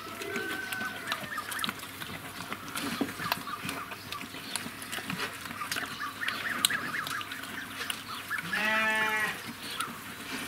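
Sow eating dry pellet feed from a trough: steady crunching and snuffling with many scattered clicks. About eight and a half seconds in, a single wavering bleat sounds for under a second, louder than the eating.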